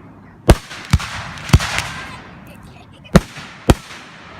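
Aerial firework shells bursting: five sharp bangs within about three seconds, two close together near the start, one a little later, and two more near the end, each trailing off in a fading echo.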